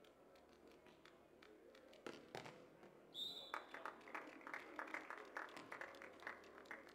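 A volleyball struck twice about two seconds in, then a short referee's whistle blast ending the rally, followed by spectators clapping for about three seconds.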